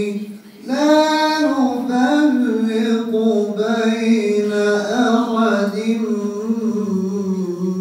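A man's solo Qur'an recitation, chanted melodically in long held phrases with ornamented turns. There is a brief breath pause just under a second in.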